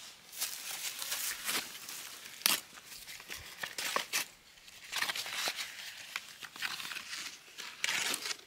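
Irregular rustling and crinkling: a run of short scrapes and crackles, with a sharp crack about two and a half seconds in.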